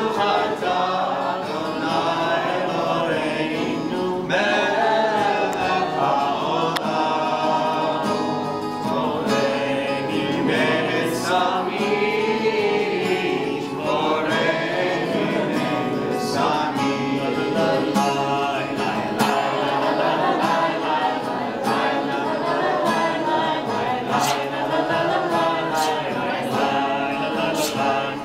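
A group of people singing a Havdalah song together.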